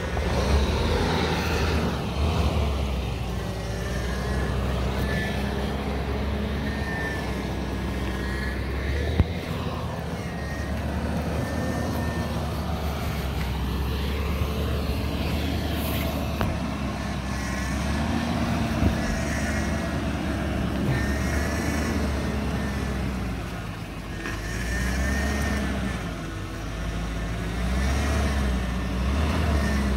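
Range Rover L322 engine running at low revs as it crawls up a rocky trail, a steady low rumble that rises and falls a little with the throttle, with a couple of sharp brief knocks.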